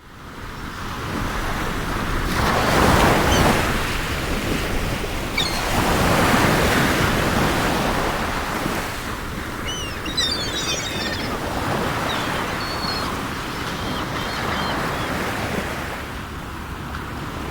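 Sea waves breaking and washing in, in slow swelling surges. Seagulls call in a brief flurry of high cries about ten seconds in, with a few more calls later.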